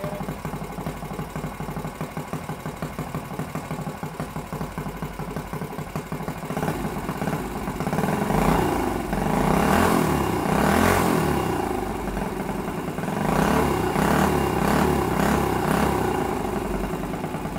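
Modified Honda GX160 single-cylinder four-stroke engine, with a Mikuni carburetor and an aftermarket header and muffler, idling on a bench stand. It is revved up twice by hand at the carburetor, each time climbing and falling back, then settles to idle near the end.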